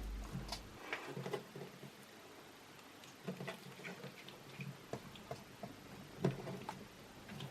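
Clear slime mixed with Orbeez water beads being squeezed and poked, giving irregular small clicks, pops and squishes in short clusters.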